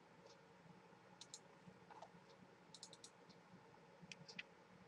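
Faint computer mouse clicks, a scattered handful of single and paired clicks, against near-silent room tone.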